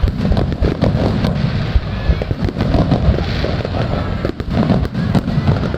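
Fireworks going off in quick succession: a dense run of sharp bangs and crackles over a continuous low rumble.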